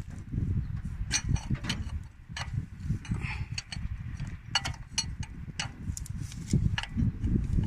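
A wrench turning a threaded adapter fitting on a truck air-compressor head: irregular sharp clicks over a low rumble.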